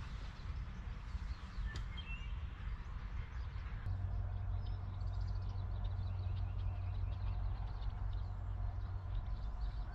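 Birds chirping and calling in scattered short notes over a steady low rumble, with a steady low hum setting in about four seconds in.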